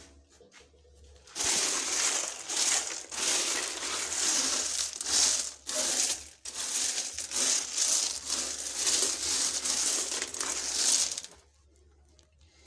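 Stone chippings being poured in for the digester's chippings layer: a continuous gritty rattle of small stones. It starts about a second and a half in, briefly dips about halfway, and stops about a second before the end.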